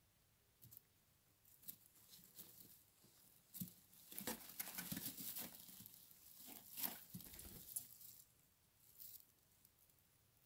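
Turkey poults shifting and stepping about in straw bedding: faint, irregular rustling and scratching of the straw, busiest in the middle and dying away near the end.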